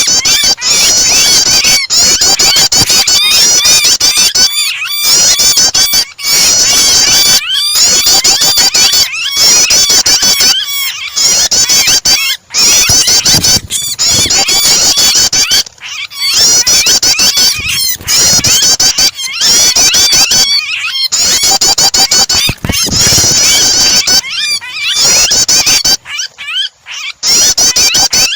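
Loud, dense chattering of prinia (prenjak) calls mixed with the squealing distress calls of a trapped bird: rapid high chirps packed tightly together, with short breaks every few seconds.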